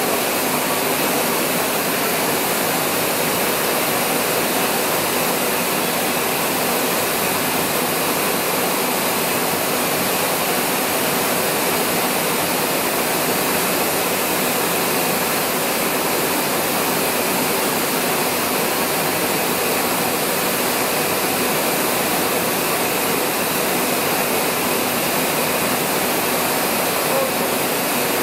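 Large multi-cylinder stationary diesel engine running at a steady speed close by, a loud, even noise that never changes.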